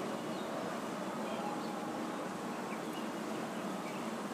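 Bakushin Susanow metal Beyblade spinning on its ball performance tip in a plastic stadium: a steady, even whirring hiss, with the top still spinning strongly late in a long stamina test spin.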